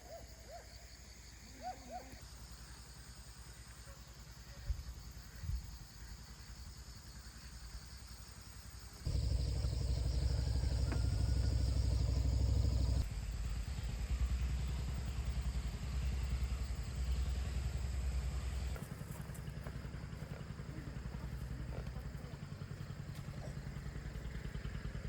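Motorbike engine running while riding, getting markedly louder about nine seconds in and easing off in two steps after that. A few short high whines are heard at the start.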